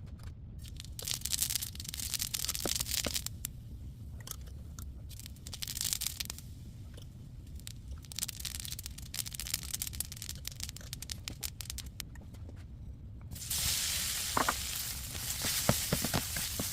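Hot oil sizzling and crackling in a pan, in short spells at first, then a steadier, louder sizzle from about thirteen seconds in.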